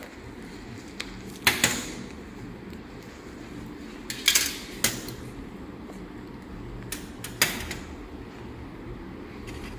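Steel surgical instruments clicking and clinking: hemostat forceps being handled and set down on a stainless steel table. About half a dozen sharp clicks come in small clusters, about a second and a half, four to five, and seven seconds in, over a low steady hum.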